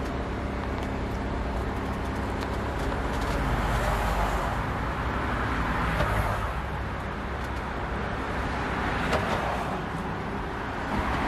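Steady roadside traffic noise from passing cars, with a few light knocks as the wooden pot lid and the sausage are handled.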